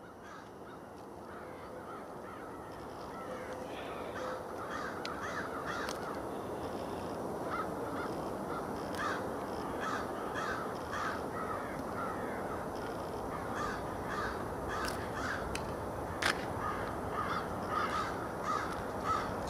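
Birds giving harsh, caw-like calls over and over, about two a second, over a steady rushing background noise that builds over the first few seconds. A few sharp clicks cut through near the middle.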